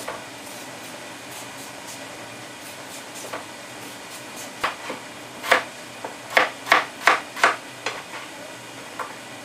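Kitchen knife cutting a peeled potato on a chopping board: sharp knocks of the blade hitting the board. A few come singly at first, then a quick run of about three a second, then a couple more near the end.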